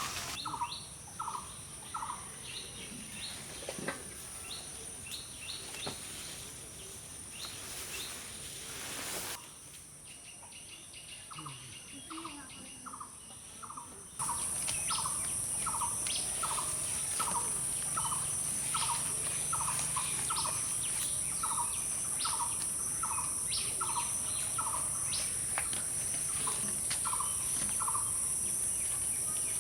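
A bird repeating a short call note over and over, about two a second with occasional pauses. A steady high-pitched insect drone comes in suddenly about fourteen seconds in and continues under the calls.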